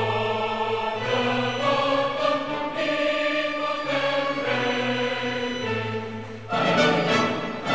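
Background music: a choir singing long held chords, with orchestral backing, growing louder and fuller about six and a half seconds in.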